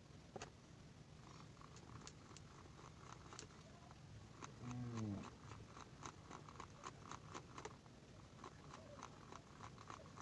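Faint, quick small clicks and taps, the sound of the clip fan's plastic parts being handled and fitted back together. About four and a half seconds in comes a short cry that falls in pitch.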